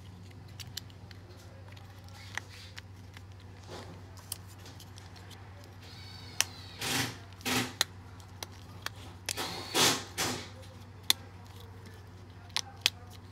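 Small plastic remote-start key fob being handled and pressed together. Scattered sharp clicks and a few short scraping rustles, with the loudest rustles about seven and ten seconds in.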